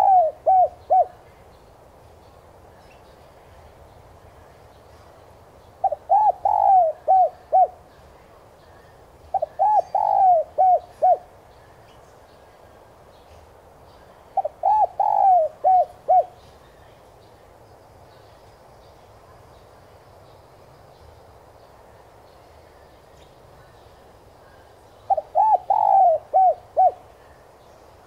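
Spotted dove cooing its repeated multi-note phrase, five phrases of several quick coos each with long pauses between. It is a decoy bird's call, used to provoke other doves into calling.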